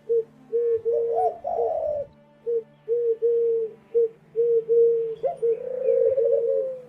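Doves cooing: a run of low hooting notes, some short and some drawn out, repeating about twice a second.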